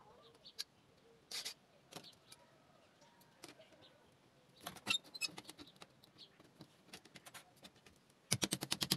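Hand work on the door of an old refrigerator converted into an egg incubator: scattered clicks and light knocks as a long metal strip is fitted around the door's window, a cluster of them about five seconds in, then a quick rattle of rapid clicks near the end.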